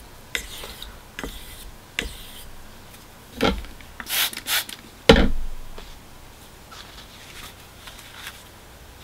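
Steel straight-razor blade scraping and stroking across a bench sharpening stone, with a few short clicks and knocks. Two of the knocks are loud and low: one about three and a half seconds in, and the loudest just after five seconds.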